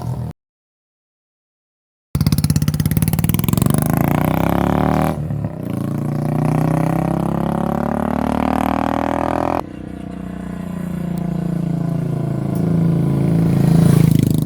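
Royal Enfield Bullet single-cylinder engine running through a short bottle silencer on the stock bend pipe, with a fast, even thump, being revved up and let back down so its pitch rises and falls. The sound drops out completely for about two seconds near the start and changes abruptly twice, as if cut.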